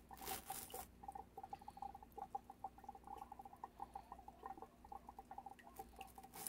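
Faint, rapid irregular bubbling and dripping of water in a hydroponic pipe system driven by an airlift pump, over a low steady hum. A brief rustle of handling about half a second in.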